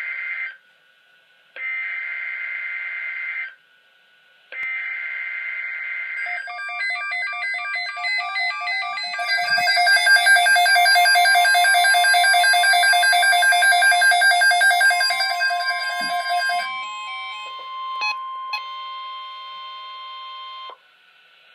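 Emergency Alert System SAME header: three short bursts of screeching digital data, about a second apart. Then a dense, rhythmic pattern of many overlapping tones, over which the steady NOAA Weather Radio 1050 Hz alert tone starts about halfway through and holds until it cuts off suddenly near the end.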